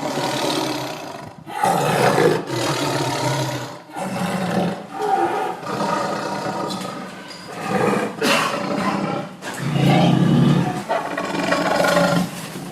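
A tiger roaring, a string of long, rough roars with short breaks between them.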